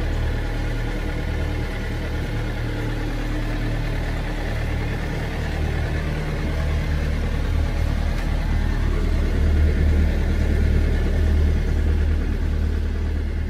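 A sailboat's inboard engine running steadily under way, a continuous low drone with a hiss of water and wind over it, a little louder past the middle.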